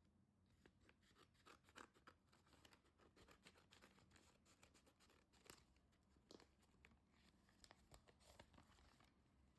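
Faint rustling and crinkling with many small clicks and taps, as of light objects or packaging being handled at close range.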